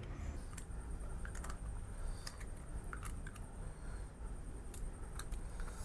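Close-miked eating sounds: scattered small clicks and wet smacks of chewing and picking at cooked goat head meat.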